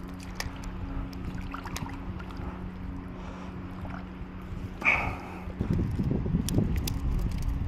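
Wind buffeting the microphone over a steady low hum. The hum stops about five and a half seconds in, and louder wind rumble takes over.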